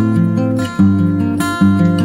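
Background music: strummed acoustic guitar playing chords, with a new strum or chord change about every half second.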